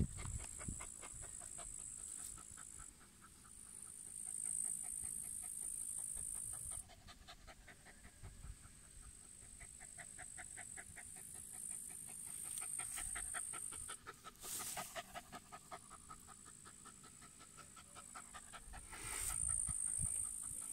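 A dog panting rapidly and evenly, out of breath from hard digging. A steady high-pitched buzz comes and goes behind it.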